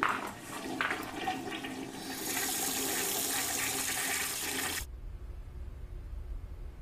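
Water rushing and gurgling, growing louder and brighter about two seconds in, then cutting off abruptly about five seconds in.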